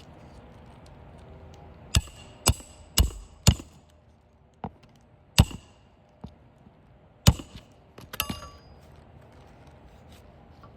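Roofing nails being driven to fasten a replacement asphalt shingle: sharp strikes, four about half a second apart, then a few more spaced out and a quick cluster near the end.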